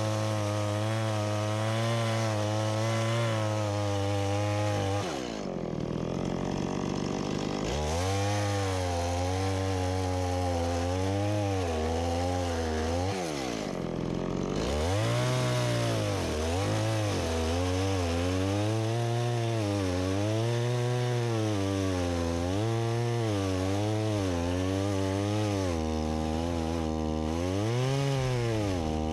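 Stihl MS170 two-stroke chainsaw cutting wood, its engine pitch rising and sagging continually as the chain bites. The revs drop deeply twice, at about a fifth and about halfway through, before revving back up.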